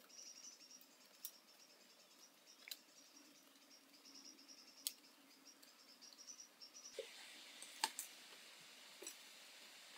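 Quiet outdoor ambience: a faint, quickly repeating high chirping, with a few short sharp clicks and taps from bamboo strips being handled and tied into a cage frame. A soft hiss comes in about seven seconds in, and the chirping stops there.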